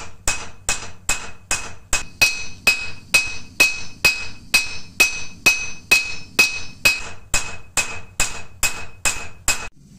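Hand hammer striking a red-hot wootz crucible-steel ingot on a steel anvil in a steady rhythm, a little over two blows a second, each blow ringing; this is the first forging of the ingot. The blows stop shortly before the end.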